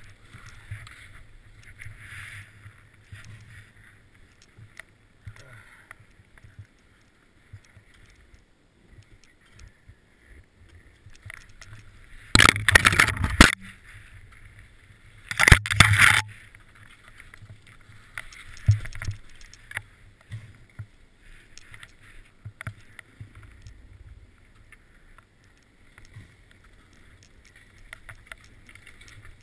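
Skis sliding over snow with a low hiss, with two loud rushing scrapes, each about a second long, about twelve and fifteen seconds in.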